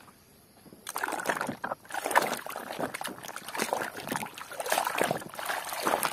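Water sloshing and splashing as a toy is washed by hand in clean water, irregular and starting about a second in.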